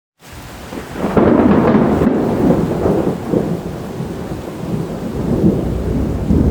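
Thunder rumbling over rain, swelling about a second in and rolling on.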